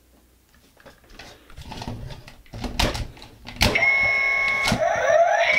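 Hard plastic toy parts clicking and clunking as the Voltron '84 combining robot's lion legs are pressed onto its core, with two loud clunks. Straight after the second clunk the toy's electronics answer through its small speaker: a steady electronic tone for about a second, then rising sweeping tones, the sound gimmick that recognises which lion is being combined.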